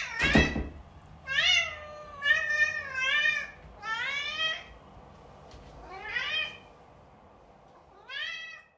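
Long-haired cat meowing repeatedly, about six meows spaced over several seconds, several of them rising in pitch. A brief thud sounds just at the start.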